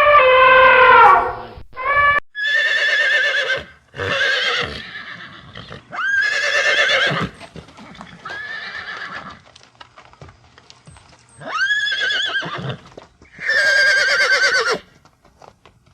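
Horses whinnying: a series of separate quavering, high-pitched calls, about eight in all, with short pauses between them.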